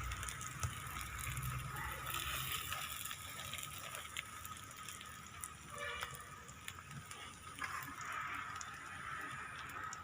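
Egg-dipped bread frying on an oiled dosa tawa: a steady sizzle with a few faint crackles.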